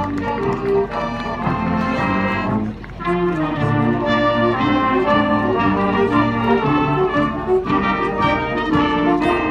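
High school marching band playing a tune on brass and saxophones, with a short break in the sound about three seconds in before the full band comes back in.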